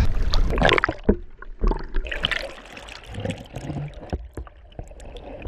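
Sea water sloshing and gurgling against a kayak's hull, with scattered small clicks; louder in the first second, then quieter.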